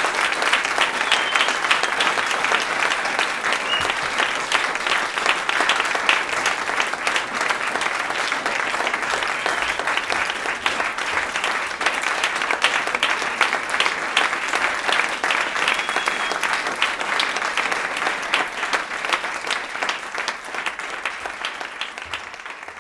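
Audience applauding with dense, steady clapping that slowly thins and grows quieter toward the end.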